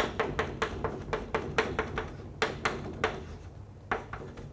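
Chalk clicking against a blackboard as equations are written: a rapid, irregular run of sharp taps, several a second.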